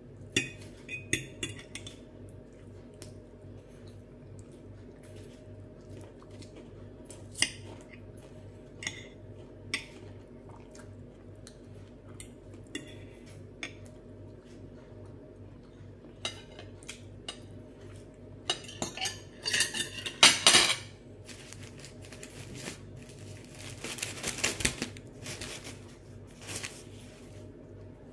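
Metal knife and fork clinking and scraping against glass plates, in scattered taps, with the loudest run of clatter and scraping about two-thirds of the way through.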